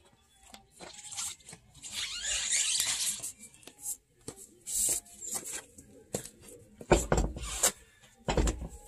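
Scraping, knocking and clatter as a heavy wheel and tire is moved and lifted onto the hub, with two heavy thumps near the end.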